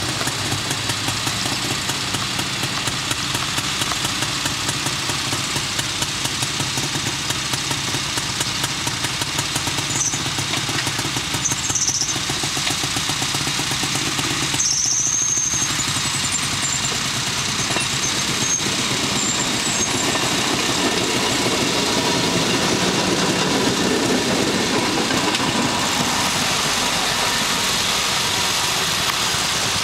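Small gasoline engines of several railway motorcars (speeders) running with a rapid, even putter as the cars move off along the track. A few brief high chirps sound about halfway through.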